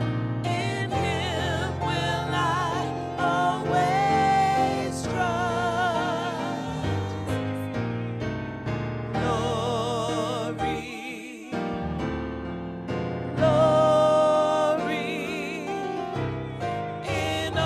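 Gospel praise team singing into microphones, with sustained notes and wide vibrato, over keyboard accompaniment.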